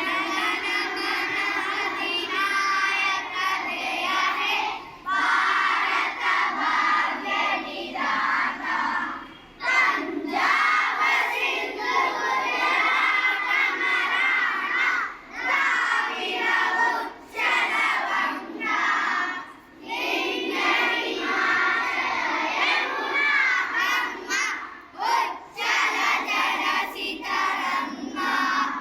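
A group of young children singing together loudly, in phrases broken by short pauses every few seconds.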